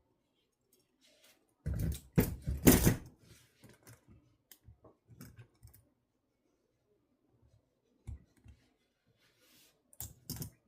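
Peerless 700C steel handcuffs being worked with a paperclip shim, giving metal clicks and rattles. There is a loud cluster about two seconds in, then scattered light ticks, and a few sharper clicks near the end.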